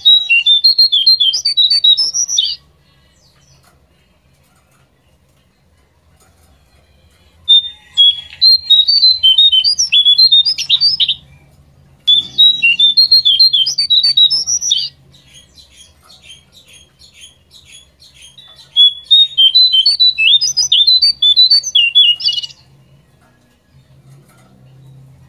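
Jongkangan songbird singing fast, high, chattering song phrases in four bursts of a few seconds each, with pauses between: a lure recording played to get a caged bird to sing.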